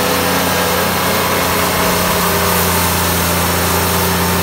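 Ventrac 4500Y compact tractor's diesel engine running steadily as its front rotary power broom sweeps snow, a constant low hum with a hissing noise over it.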